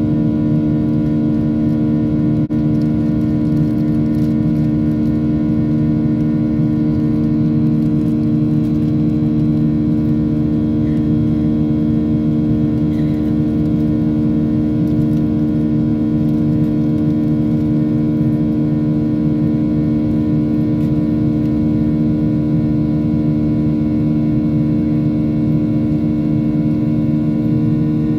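Jet engines of a Ryanair Boeing 737 heard in the cabin during the climb after take-off: a steady drone with several constant humming tones over a low rumble.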